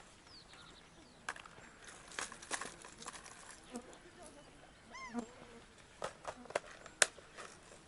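Sharp clicks and rattles of fishing tackle handled while a lure is changed on a spinning rod, with one short animal call about five seconds in.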